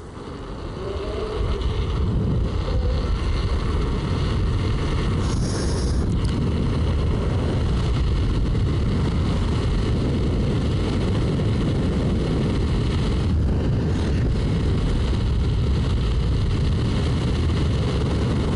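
Wind buffeting the microphone of an electric unicycle rider speeding up on open road: a low rush that builds over the first couple of seconds, then holds steady at high speed.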